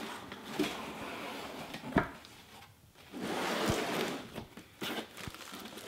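A long cardboard box being opened by hand: a sharp knock about two seconds in, then cardboard sliding and rustling for about a second and a half as the lid comes up, with a couple of light taps after.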